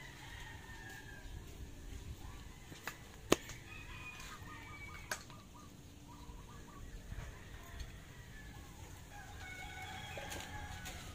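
Faint calls of chickens in the background, with a longer held call near the end, and two sharp clicks, the louder one about a third of the way in.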